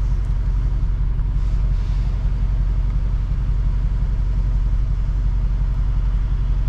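Dodge Charger Hellcat's supercharged V8 running at steady low revs with a deep, even exhaust rumble.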